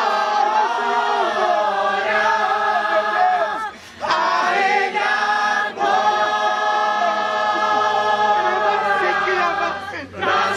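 Many voices singing a worship song together, holding long notes, with a brief break about four seconds in.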